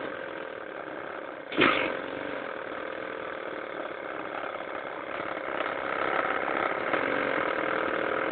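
Four-stroke lawn mower engine running steadily at idle, an idle the owner finds a bit dodgy. A single sharp bang about one and a half seconds in, and the engine sounds a little louder from about five seconds on.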